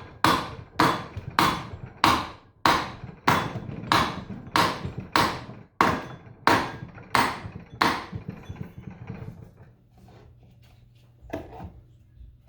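Hammer blows driving an electric motor's shaft out of its housing: about thirteen steady, evenly paced metallic strikes, a little under two a second, each ringing briefly. They stop about two-thirds of the way through, and one lighter strike follows near the end.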